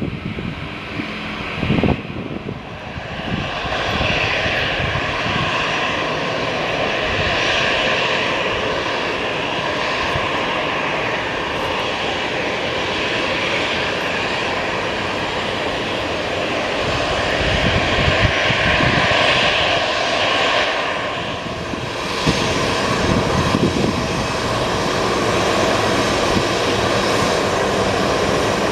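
The CFM56 jet engines of a Citilink Airbus A320-214 running, a continuous whine and rush that swells a few seconds in and dips briefly about three-quarters of the way through.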